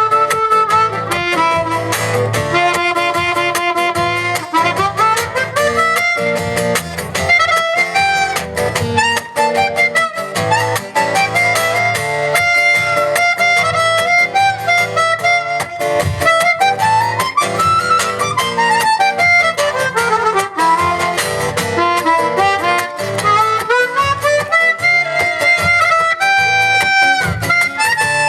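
Instrumental break in a live acoustic song: a harmonica solo playing runs that climb and fall, over strummed acoustic guitar.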